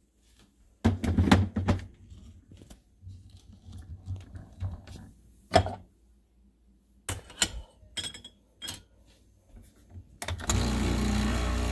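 Metal portafilter knocking and clattering as it is handled and locked into an espresso machine's group head. About ten seconds in, the espresso machine's pump switches on and runs with a steady buzzing hum as the shot starts.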